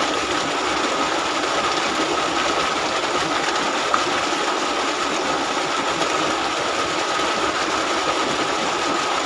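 Mountain spring water pouring in a steady stream as an outdoor shower, an even rushing with a thin steady high tone running through it.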